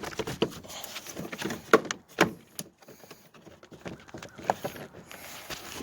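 Plastic clicks, knocks and rattles from a fifth-generation Subaru Impreza's front door trim panel being pulled away from the door against its push-in clips, with two sharp snaps about 1.7 and 2.2 seconds in.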